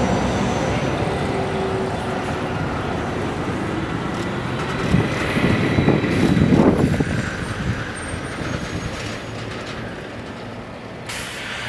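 Two coupled GT8-100 Stadtbahn light-rail cars (a GT8-100D/2S-M and a GT8-100C/2S) rolling slowly into a tram stop and braking to a halt. The running noise swells about five seconds in as they stop, then settles lower, with a short hiss near the end.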